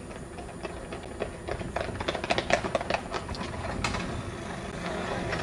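Several mopeds being started at once: a clatter of clicks and rattles through the middle, then small two-stroke moped engines catching and running, growing louder near the end.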